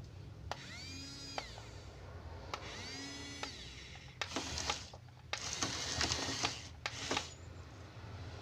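Small electric gear motors of a toy RC bulldozer whirring in two short runs, each whine rising in pitch, holding and falling away, with a few clicks between them. From about four seconds in come longer, harsher, noisier runs of the motors and gearing.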